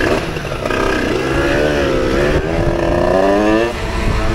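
Moped engine accelerating as the bike pulls away. About a second in its pitch starts climbing steadily for about three seconds, then drops back near the end.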